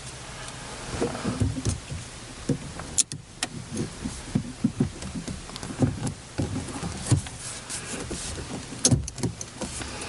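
Handling of a phone being fitted into a Ram Mount X-Grip holder: irregular light knocks and rubbing, with a few sharp clicks of the grip's arms, about three seconds in and again near the end.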